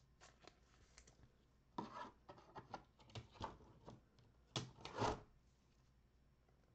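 Trading cards being handled: a string of short rubbing and scraping sounds with light clicks, loudest about two seconds in and again about five seconds in.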